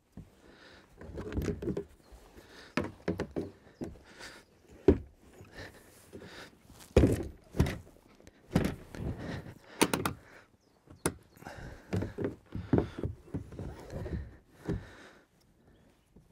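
Hollow knocks, thuds and clicks of a Natseq modular kayak's hull sections being pushed together and fastened, at an irregular pace with the loudest knocks about five, seven and ten seconds in.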